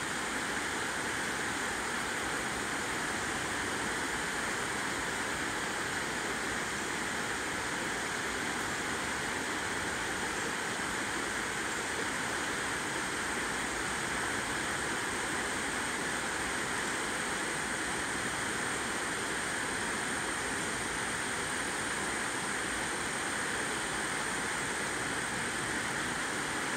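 Creek water rushing over a shallow rocky riffle: a steady, even rush with no change.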